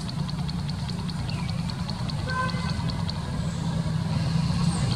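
A motor engine idling steadily with a low hum, and a faint fast high ticking about eight times a second over the first few seconds.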